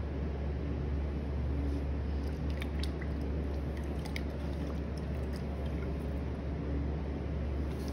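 Electric potter's wheel running with a steady low hum, while wet clay squelches under the hands as a cylinder is thrown. A few small wet clicks come a few seconds in.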